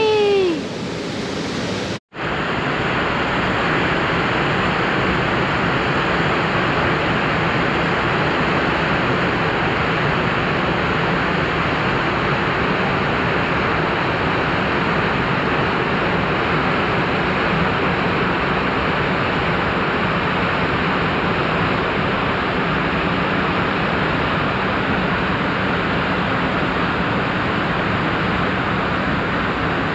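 Waterfall rushing: a loud, steady roar of falling water, broken off briefly about two seconds in.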